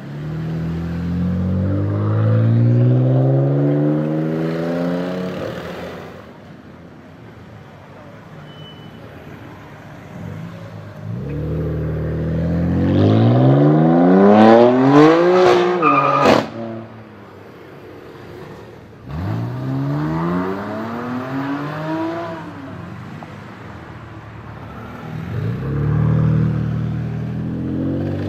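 BMW M4 F82's twin-turbo straight-six with an aftermarket Fi exhaust, loud, in four separate pulls whose engine note rises in pitch. The loudest pull, in the middle, cuts off suddenly with a sharp crack.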